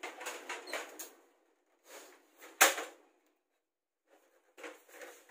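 Handling noise from copier parts: a few short scraping rattles, then a single sharp click about two and a half seconds in, then more brief rattles near the end.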